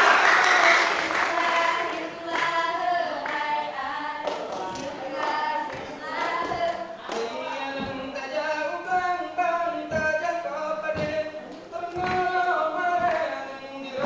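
Group of dancers singing a Rampai Aceh song in unison a cappella, with no instruments, as applause fades out over the first second or two. Sharp hand slaps punctuate the song every second or so in the second half.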